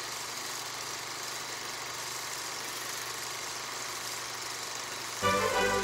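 A steady mechanical whirring hiss with a faint low hum; music starts about five seconds in.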